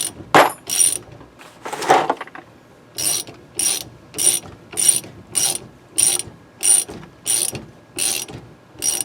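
Hand thread-repair tool scraping over a stud's damaged, gummed-up threads, with metal rasping on metal. After a few irregular strokes it settles into a regular back-and-forth, about one and a half strokes a second, each with a slight metallic ring.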